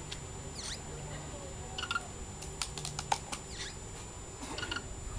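Birds chirping, with a few short calls that slide down in pitch, and a quick run of sharp clicks or taps around the middle.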